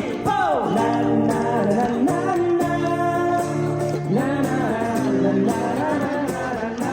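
Live music: a vocalist singing over acoustic guitar accompaniment, with long held, wavering notes.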